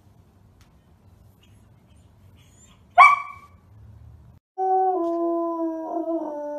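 A Samoyed gives one short, sharp bark about three seconds in. A second and a half later a Samoyed starts a long, loud howl on one held pitch that drifts slightly lower.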